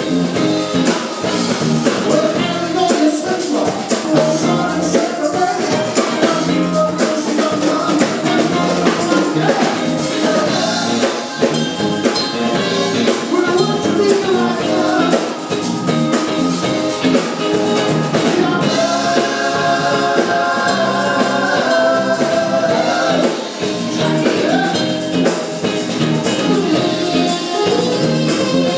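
Live band playing a song with a singer, drums and percussion.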